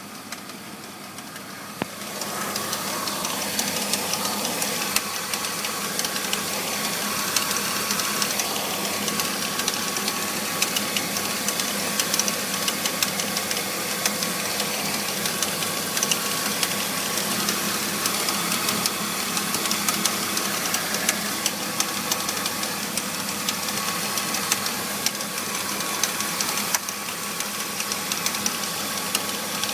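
BMW E46 325i's straight-six engine running with a fast, steady rattle. The rattle came on after new pulleys, a new serpentine belt, radiator and power steering pump were fitted, and its cause is unknown. The sound gets louder about two seconds in.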